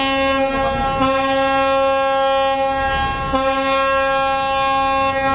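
Tugboat horn sounding in long, steady blasts, with short breaks about one second in and again after about three seconds, over a low rumble.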